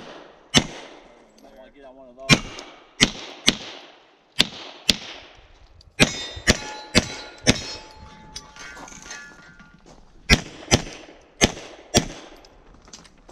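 Semi-automatic pistol fired about fourteen times, mostly in quick pairs about half a second apart, with a pause of a couple of seconds between strings. Steel targets ring with a clang after some of the hits.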